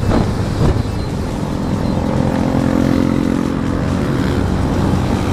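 Small single-cylinder motorcycle engine, a Yamaha Vega Force i 115cc, running at a steady cruise, heard under heavy wind rumble on the microphone.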